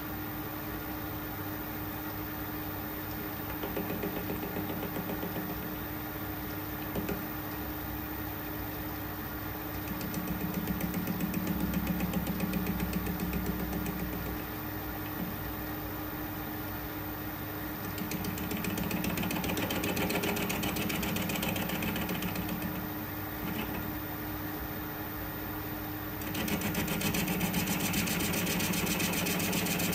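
Metal lathe running with a cast brake-cylinder blank spinning in the chuck: a steady motor and gear hum that swells in loudness four times, the last swell lasting to the end, as facing cuts are taken on the casting.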